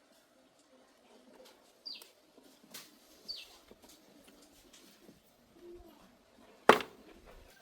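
Light clicks and taps, with two short chirps falling in pitch in the first half, then a single sharp knock about two-thirds of the way through.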